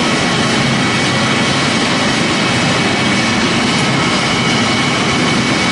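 Pellet-making machinery running: a loud, steady machine noise with faint high whining tones, as the line turns out fresh pellets onto a conveyor.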